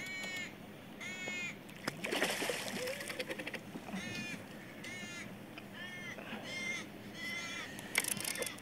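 A bird calling again and again in short cawing calls, roughly one a second. About two seconds in there is a burst of splashing water from a hooked fish thrashing at the surface.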